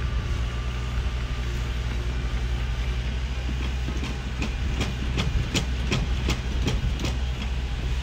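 Bulldozer's diesel engine running with a steady low drone. About halfway through, a rhythmic clanking of roughly three sharp clicks a second starts and lasts about three seconds, typical of a crawler's steel track links as it moves.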